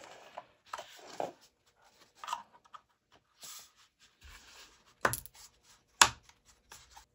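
A screw being turned by hand tools through 3D-printed plastic parts into a nut: scraping and rubbing of tool and plastic, with two sharp clicks about five and six seconds in.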